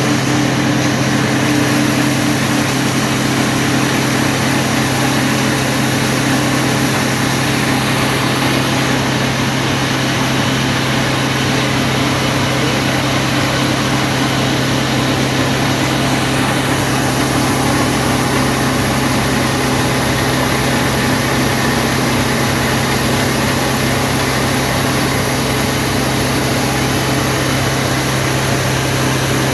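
Wheat grain grading and cleaning machine running steadily: a constant low hum under a dense, even noise that does not change.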